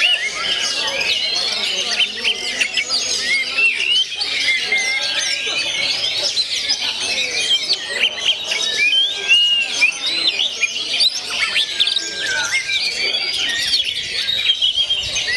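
Many songbirds singing at once, a dense, continuous mass of overlapping chirps, whistles and repeated arched notes, with a low murmur beneath.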